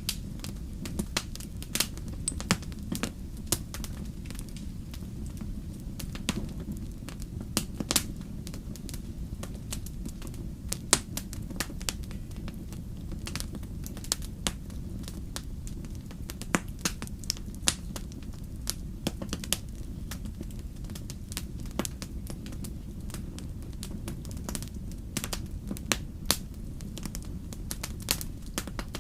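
Wood campfire crackling, with sharp pops at irregular intervals, over a steady low rumble.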